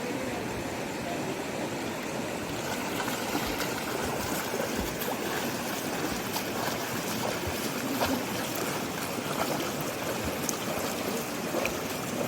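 Steady rushing noise with scattered small clicks and ticks, growing a little brighter a couple of seconds in.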